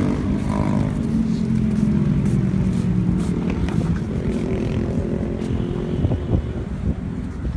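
A motor vehicle's engine running steadily, loudest in the first few seconds and then fading, with a few sharp clicks after the middle.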